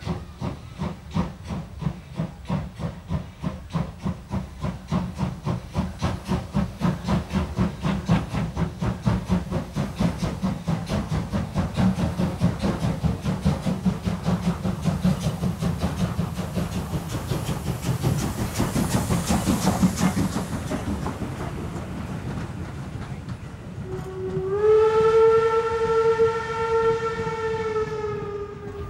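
Steam locomotive 52 8139, a German class 52 2-10-0, pulling away with a train, its exhaust beats coming faster as it gathers speed. Near the end a steam whistle sounds for about four seconds.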